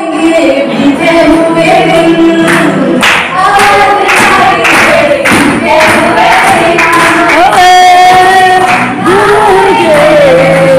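A young woman singing a song into a handheld microphone, with held notes and a sliding melody, while listeners clap along.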